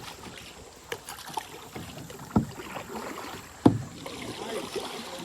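A few sharp knocks and thumps over faint water and movement noise; the two loudest come about two and a half and three and a half seconds in.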